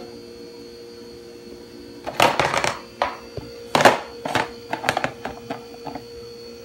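A broad kitchen knife knocking and scraping on a cutting board in a string of short, sharp taps, the loudest about four seconds in, over a steady hum.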